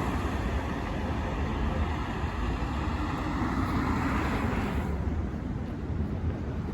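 Steady city street noise with a low rumble of traffic. The higher hiss drops off about five seconds in.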